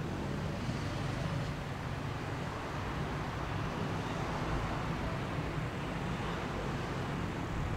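Steady low outdoor rumble with a light hiss and no distinct events.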